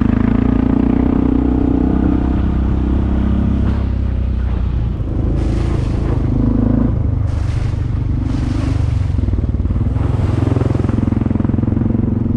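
Off-road vehicle engine running steadily with a low rumble. Several short rushing noises come over it in the second half.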